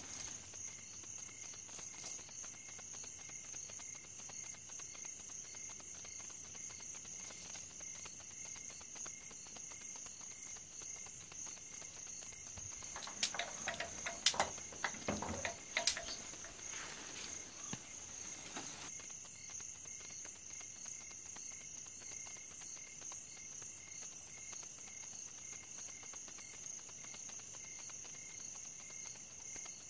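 Crickets chirping steadily, with a short cluster of clicks and knocks about halfway through.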